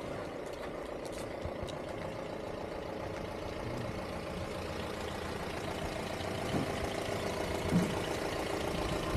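Engine of a small box-bodied pickup truck running at low speed as it drives closer over a muddy lane, growing gradually louder, with a short thump near the end.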